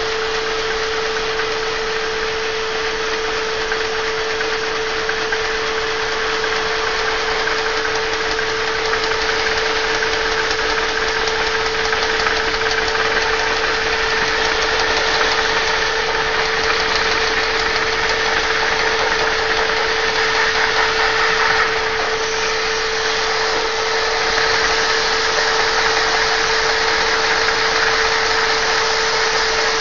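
Lego Technic double-acting vacuum engine running steadily, its flywheel and linkage turning, over the constant drone and hum of the vacuum cleaner that drives it.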